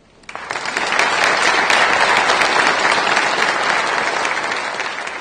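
An audience applauding. The clapping starts a moment in, builds within about a second to the dense, steady sound of many hands, and eases slightly toward the end.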